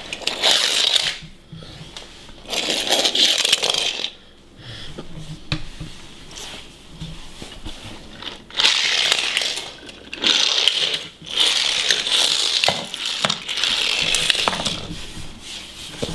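Diecast toy airplane being pushed and rolled across a laminate floor: repeated scraping, rolling rushes, each a second or two long, with short pauses between them.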